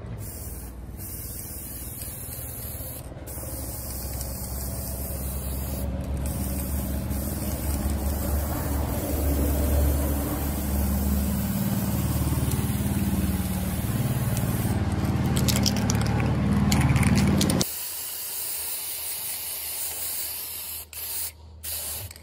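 Aerosol spray-paint can hissing in long continuous sprays as yellow paint goes onto a cement flower pot. The spray grows louder, then cuts off abruptly about 18 seconds in, leaving a quieter hiss.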